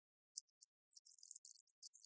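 Faint scratching, rustling and small clicks of hands handling and turning over a cardboard box on a wooden floor. The sounds start about half a second in and come thick and fast in the second half.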